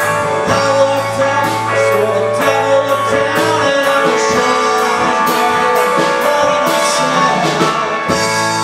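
Rock band playing live: electric bass and guitar over a drum kit, with cymbals struck on a regular beat.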